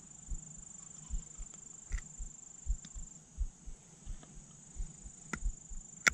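Insects buzzing steadily at a high pitch, with irregular soft thumps and a few sharp clicks from handling as a hook is worked out of a channel catfish's mouth.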